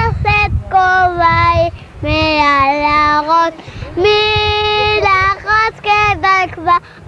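A young boy singing a Hebrew children's song unaccompanied, in phrases of long held notes with short breaks for breath between them.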